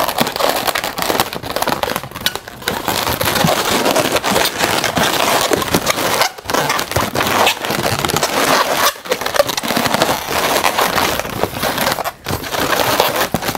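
Inflated 260 latex modelling balloons rubbing against each other and against the hands as they are twisted together, a dense scratchy noise with short breaks about six, nine and twelve seconds in.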